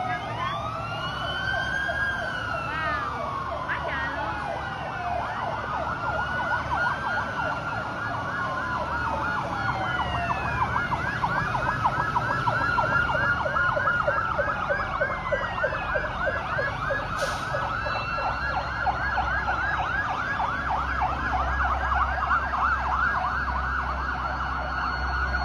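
Several Vietnamese traffic police sirens sounding at once: slow rising-and-falling wails overlap one another, and about five seconds in a fast yelp joins and keeps going over them.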